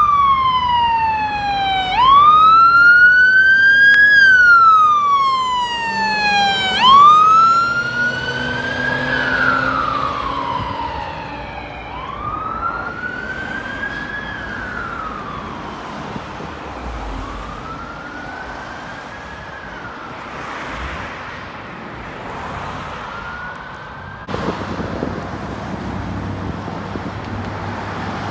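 Fire truck siren on a slow wail, the pitch rising and falling in cycles of a few seconds and growing fainter as the truck drives away until it can no longer be heard. Near the end it gives way abruptly to steady traffic and wind noise.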